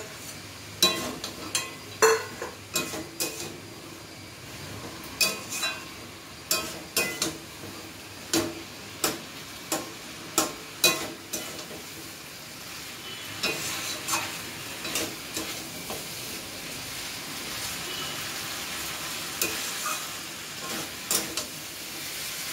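A metal spatula stirring and scraping a pumpkin and fish-head curry in a steel kadai, clinking against the pan again and again, while the food sizzles in the oil. The sizzling grows louder in the second half.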